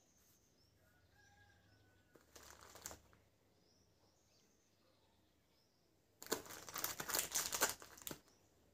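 Plastic biscuit-packet wrapper crinkling as a hand handles it: a brief rustle a couple of seconds in, then a louder crackling burst of about two seconds near the end.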